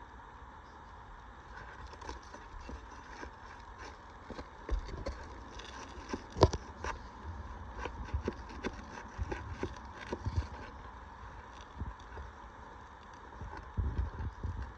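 Scattered clicks, taps and scrapes as asphalt roof shingles are lifted and roofing nails are pried out, with one sharp loud click about six and a half seconds in, over a low rumble.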